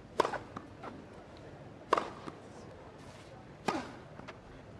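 Tennis serves on a grass court: three sharp racket-on-ball strikes about a second and three-quarters apart, each followed by a few fainter knocks, over a low crowd hush.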